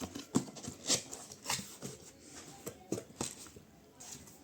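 Cardboard box and packaging being opened and handled by hand: irregular rustles, scrapes and taps, busiest in the first two seconds and thinning out toward the end.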